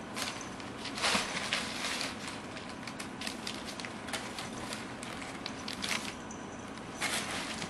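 Crumpled brown packing paper crinkling and crackling as a kitten paws and pushes through it, in irregular bursts, loudest about a second in and again near the end.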